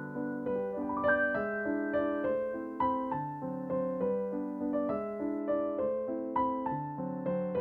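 Background music: a gentle piano or electric-piano tune, notes struck about every half second over held chords.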